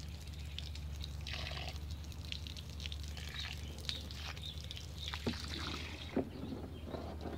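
Water from a garden hose spray nozzle splashing into shallow muddy water inside a fibreglass boat hull, with a couple of light knocks near the end.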